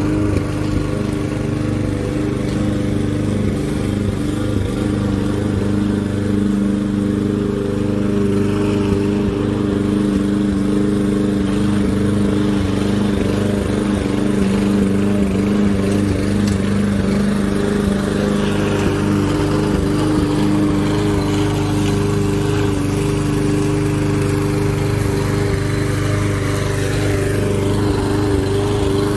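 Gas walk-behind push lawn mower engine running steadily at constant speed while cutting grass.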